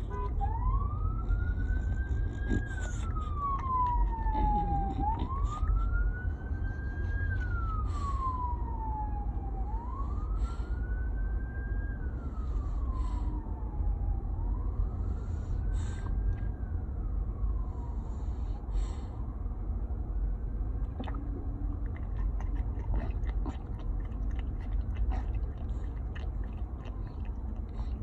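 Emergency vehicle siren in a slow wail, its pitch rising and falling about every four to five seconds, fading away after about twenty seconds, over a steady low rumble.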